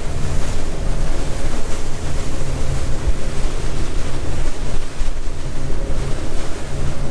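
Wind buffeting the microphone and water rushing along the hull of a boat under way, over a steady low engine hum.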